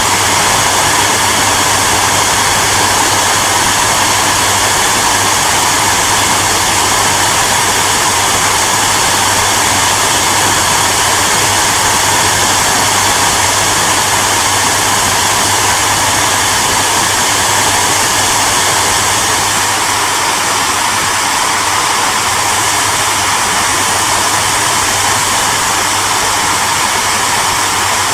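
Hair dryer running continuously: a steady loud rush of air with a low motor hum underneath.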